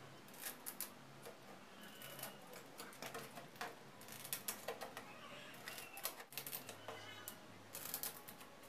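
Hand snips cutting through the edge of a thin sheet: irregular clusters of crisp clicks and crunches as the blades close, stroke after stroke.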